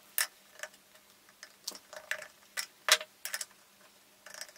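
Irregular metallic clicks and clinks of small steel parts being handled, a drive sprocket being tried on the Babetta moped engine's shaft. The loudest click comes about three seconds in.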